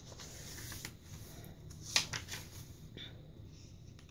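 Paper pages of a handmade mini journal rustling as they are handled and turned, with a sharper paper flick about two seconds in and a smaller one about a second later.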